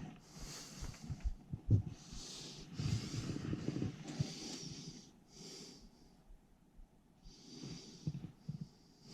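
A person breathing hard in repeated breaths, with a few light knocks from handling hose fittings.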